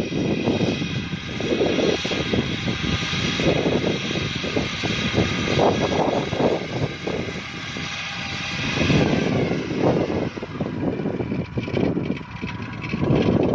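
Kubota DC-105X combine harvester running while harvesting rice: a steady high whine over a heavy rumble that swells and fades.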